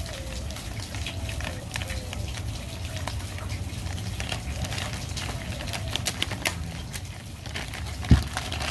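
Clear plastic bag crinkling and crackling as a knife is handled and worked out of it, with one dull thump on the table near the end.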